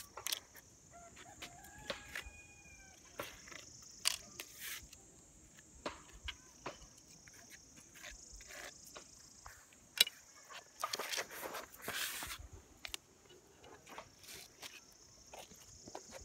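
Clicks and scrapes of a trowel working tile adhesive and of mosaic tile sheets being handled, the loudest a run of scrapes around eleven seconds in, over a steady high hiss. A bird gives one long call about a second in.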